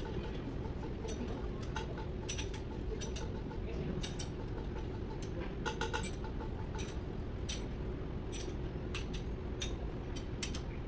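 Irregular light metallic clicks and clinks of hand tools on a diesel engine's valve gear during a valve adjustment, with a small cluster about six seconds in, over a steady low background hum.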